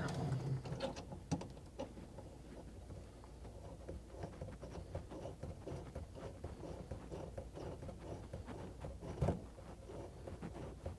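Faint handling sounds of a braided water supply hose being worked at its shutoff valve under a sink: light scattered clicks and rustles, with one sharper click about nine seconds in.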